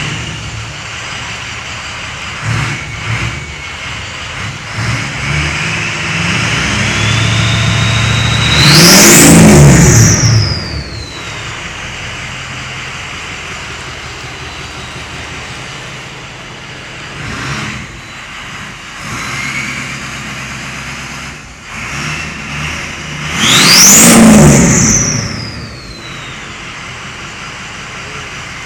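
2004 Ford F-350's 6.0 Powerstroke V8 turbodiesel with an aftermarket turbo and straight-pipe exhaust, idling and revved up twice. With each rev the real loud turbo whistle climbs steeply in pitch, then sweeps back down as the revs fall.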